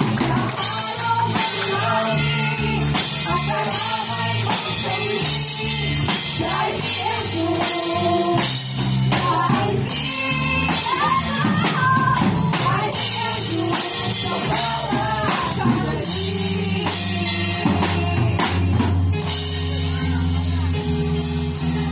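Two girls singing a Tagalog pop duet into microphones, amplified over a backing track with drums and guitar. The singing ends about two-thirds of the way through and the instrumental backing plays on.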